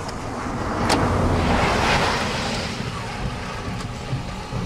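Wind rushing at the car's open window and over the microphone, swelling to a gust about two seconds in and easing off, over a low rumble.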